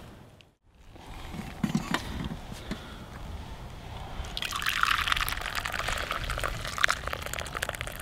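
Cowboy coffee poured from a campfire pot into a cup: a steady stream of liquid splashing into the cup, starting about halfway through and running on.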